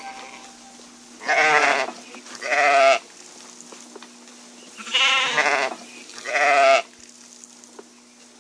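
Sheep bleating: four loud, wavering bleats in two pairs, each about half a second long.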